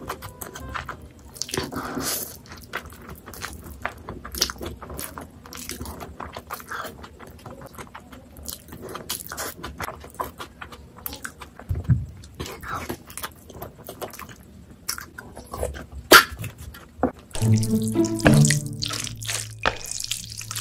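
Close-miked eating of a big mouthful of noodles: wet chewing and slurping with many small, sharp clicking mouth sounds. Near the end a steady, low pitched tone comes in and is the loudest sound.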